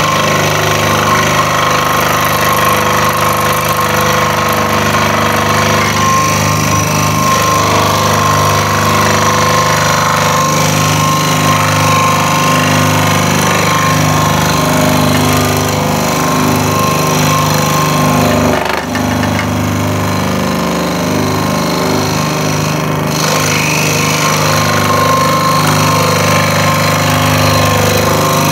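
Electric scroll saw running steadily, its thin blade stroking up and down as it cuts through a wooden board along a marked line.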